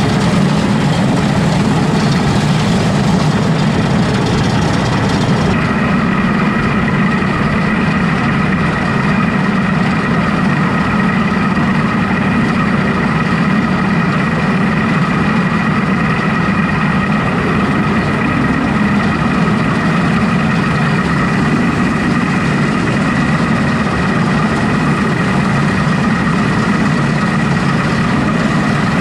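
Combine harvester running steadily while cutting soybeans: a deep engine drone, with a steady high whine from the machine that comes in about five seconds in.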